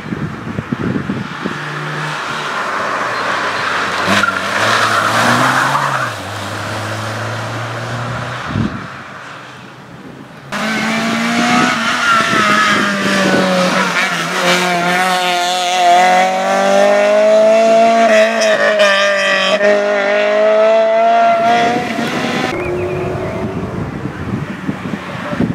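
Small rally-prepared hatchbacks driven hard through a cone slalom, engines revving high with pitch rising and falling through gear changes and lifts, and tyres squealing. The sound drops off for a few seconds, then another car comes in loud about ten seconds in.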